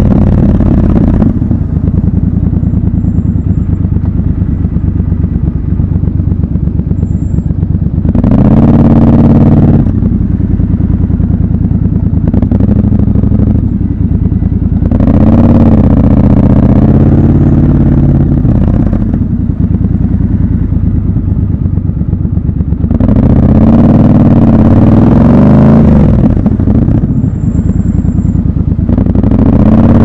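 Triumph Scrambler 1200 XC's 1200 cc parallel-twin engine running at low speed with its raw exhaust note. The throttle opens in short bursts about 8, 15 and 24 seconds in, and again near the end, the pitch rising and falling each time, with a lower, steadier off-throttle note in between.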